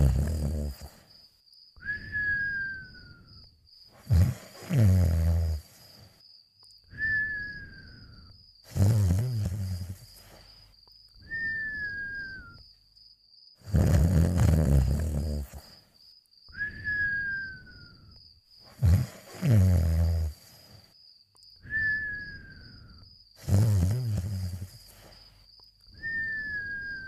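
Cartoon snoring: a rattling snore on each breath in, then a thin whistle falling in pitch on each breath out, repeating evenly about every four to five seconds.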